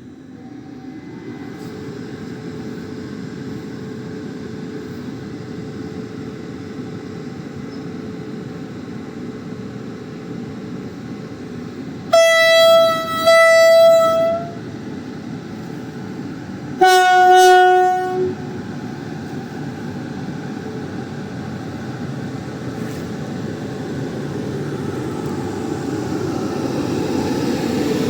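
TRA PP E1000 push-pull Tze-Chiang train pulling out: the locomotive's Alstom GTO-VVVF inverter and cooling blowers hum steadily and grow louder as it accelerates. The horn sounds about twelve seconds in as two blasts, then once more a few seconds later at a different pitch.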